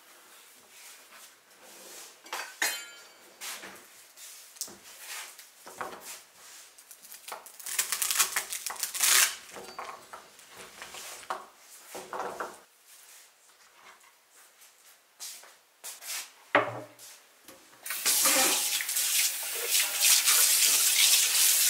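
Kitchen handling sounds: rustling carrot greens, scissors snipping off the tops, and light knocks on a wooden cutting board and worktop, with one sharper knock. Then, for the last few seconds, a kitchen tap runs steadily into a stainless steel sink.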